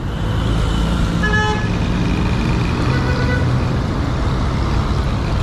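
Steady low rumble of road traffic from a moving vehicle, with a short vehicle horn toot about a second and a half in.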